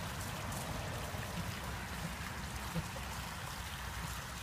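Steady trickle of water in a garden pond, over a low rumble.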